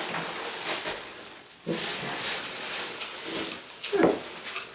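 Paper packaging and loose confetti rustling and crackling as a box of trophies is unpacked. A sudden burst of handling comes about two seconds in, and a short voiced sound rises and falls about four seconds in.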